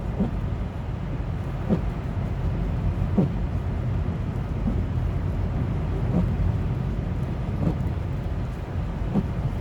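Car driving slowly through snow, heard from inside the cabin: a steady low road and engine rumble, with a faint regular beat about every second and a half.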